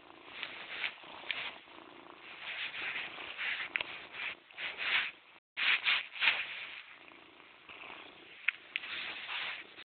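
Domestic cat purring close to the microphone, in a pulsing rhythm that swells and fades; the sound drops out briefly about halfway through.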